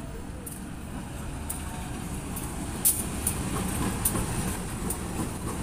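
CC 203 diesel-electric locomotive hauling a passenger train, drawing near and passing close, its engine and wheel rumble growing louder. Sharp clicks come about twice a second.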